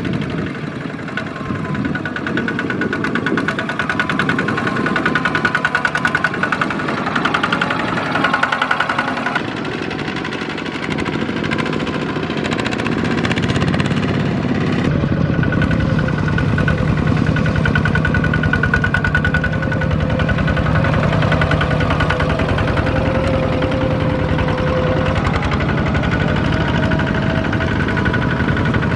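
Single-cylinder diesel engines of Kubota two-wheel walking tractors chugging steadily as they pull trailers across a field. The engine note changes abruptly twice, once about a third of the way through and again about halfway, as the shots change.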